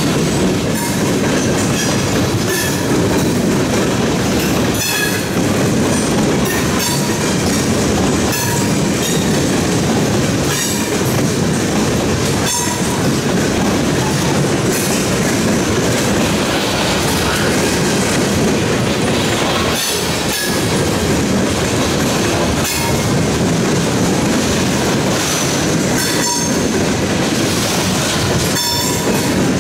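Covered hopper cars of a freight train rolling past at close range: a steady heavy rumble, with the wheels clacking over rail joints every second or two and brief high metallic rings from the wheels.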